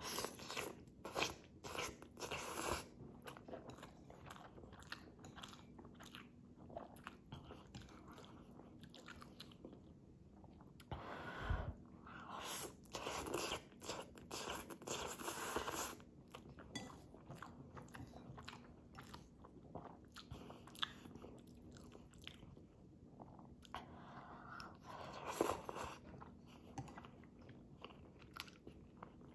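Close-up eating sounds: ramyun noodles being slurped up from a bowl with chopsticks and chewed. The slurping comes in bursts, a few near the start, a longer run around the middle and more near the end, with quieter chewing between.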